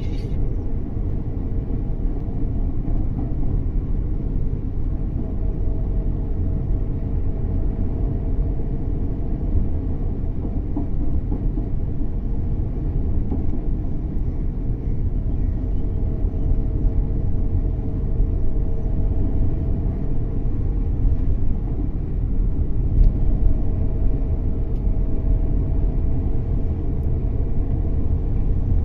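Airliner's steady low engine rumble, with a faint hum above it.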